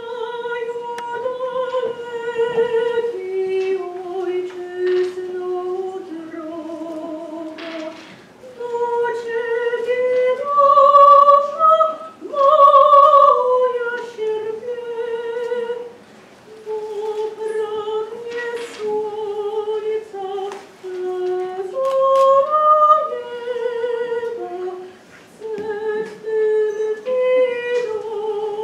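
A solo female voice singing a slow melody with vibrato, unaccompanied, in phrases with short pauses between them.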